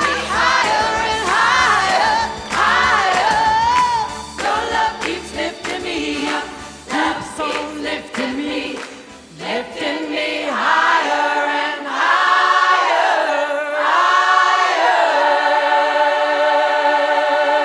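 Large choir of mostly women's voices singing, with low backing underneath for the first half. The backing drops out about halfway and the choir carries on unaccompanied, ending on a long held chord.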